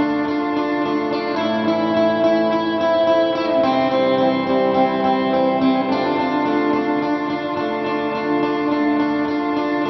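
Background music with guitar: sustained plucked and strummed notes changing chord every second or two.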